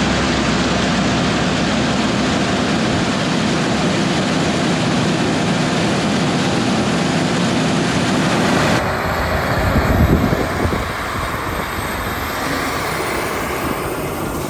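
Heavy harvest machinery running: a steady mechanical rush over a low engine hum. Around nine seconds in the sound changes abruptly, turning duller with less hiss.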